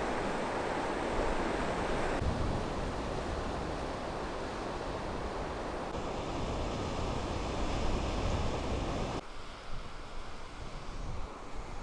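Ocean surf washing onto a beach, with wind rumbling on the microphone. The sound changes abruptly a few times, growing quieter after the last change.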